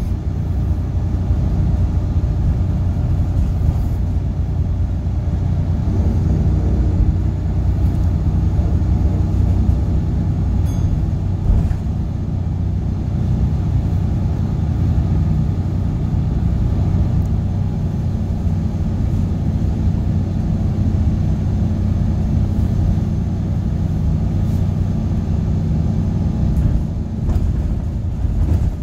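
Volvo B7RLE bus's D7C diesel engine under way, heard from inside the rear saloon: a loud, steady low drone with a blown exhaust.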